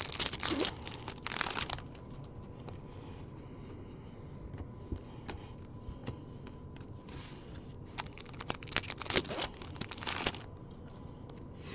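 Trading-card pack wrapper crinkling and tearing as it is opened by hand, in two bouts: in the first two seconds and again from about eight to ten and a half seconds. In between comes quieter handling of the cards with faint clicks.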